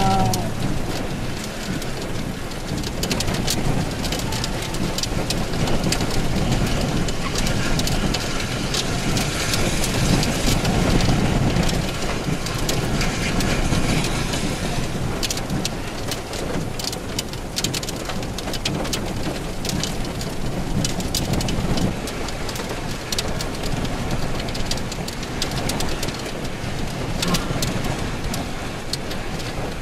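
Steady rain falling, with many separate drops ticking close to the microphone.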